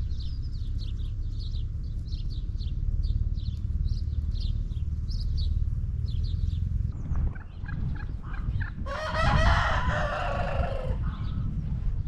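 Farmyard poultry calling: short high chirps repeat several times a second, then about nine seconds in comes one loud male-fowl call lasting about two seconds, over a low rumble.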